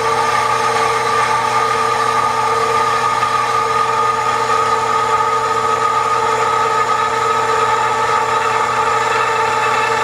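Horizontal metal-cutting bandsaw running steadily, its blade slowly cutting through two clamped metal pieces under a very slow, hand-held feed. A steady, even hum with several held pitches.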